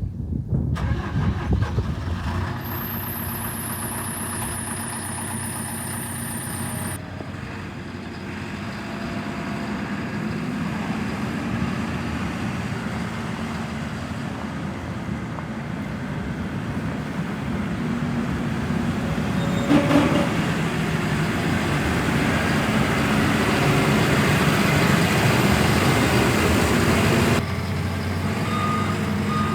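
JCB 413S wheel loader's diesel engine running, growing louder past the middle as it is revved and working, then dropping back suddenly near the end.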